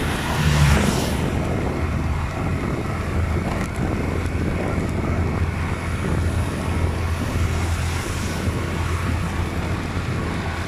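Steady low drone of a moving vehicle's engine and road noise, with a brief louder whoosh in the first second as an oncoming car passes.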